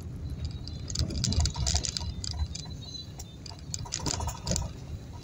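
Low rumble of a car driving slowly, heard from inside the cabin, with irregular clicks and rattles that bunch up about a second in and again around four seconds.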